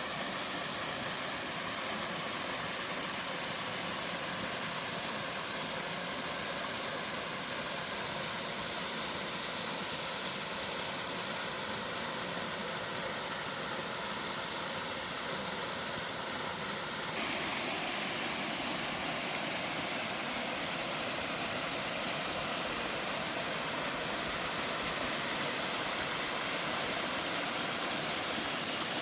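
Waterfall in a mountain valley, water pouring steadily. About two-thirds of the way through, the sound turns slightly louder and brighter.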